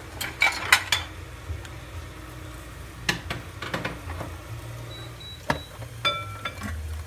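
Alton electric sandwich maker being handled: clatter and clicks as the lid is opened and a ham slice is laid on the plate, then the lid is shut. A couple of short high squeaks come near the end, over a steady low hum.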